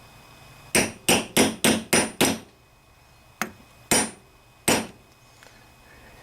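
A hammer tapping the inlet valve part into the heated aluminium body of a Briggs & Stratton Intek carburetor. Six quick sharp taps come about three to four a second, then after a pause a light click and two more single taps.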